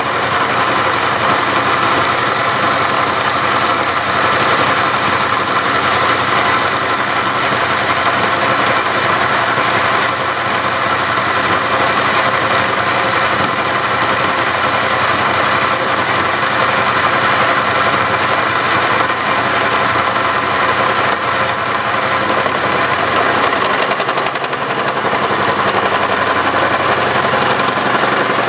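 Bridgeport milling machine's end mill cutting a slot into a metal block, taking about thirty thousandths per pass. A steady, dense cutting noise over the spindle's hum, easing slightly for a moment near the end.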